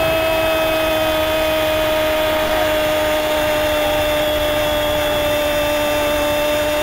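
A radio commentator's drawn-out goal cry, a single shouted note held without a break and sagging slightly in pitch, over the noise of a cheering stadium crowd.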